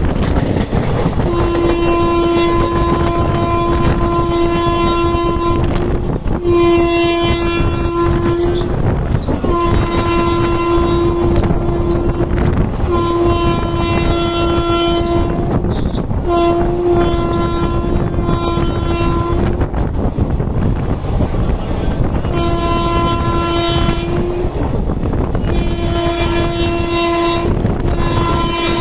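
Train horn sounding a long series of steady blasts, about eight, each one to four seconds long with short breaks between them. Underneath is the continuous rumble and clatter of a passenger train running on the rails, heard from the open door of a moving coach.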